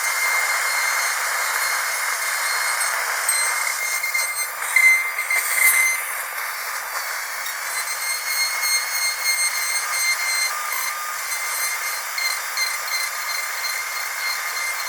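Dentist's drill running with a steady high-pitched whine over a hiss, briefly louder about five seconds in.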